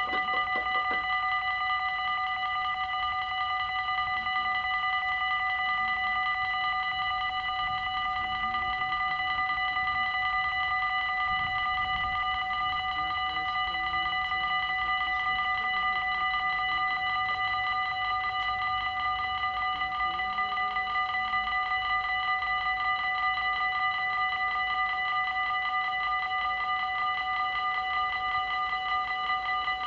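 Electronic warning bells of a Dutch railway level crossing ringing continuously, a rapid, unchanging electronic ding-ding of several steady tones, signalling that the crossing is closed for an approaching train.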